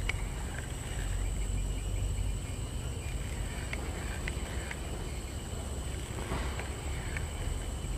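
Outdoor riverside ambience: insects drone steadily at a high pitch over a low rumble, with a few short, faint clicks scattered through and a brief rustle about six seconds in.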